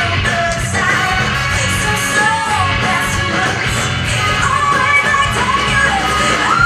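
Music playing: a song with a sung vocal line over a full band backing.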